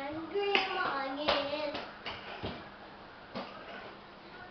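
A child singing a short melodic phrase for about the first two seconds, over a few sharp knocks that keep coming at intervals after the singing stops.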